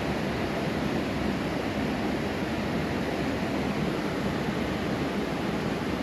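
Steady rushing of water pouring over a dam spillway, an even, unbroken noise.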